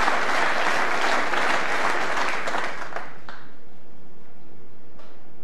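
Snooker audience applauding a brilliant shot. The clapping dies away about three seconds in.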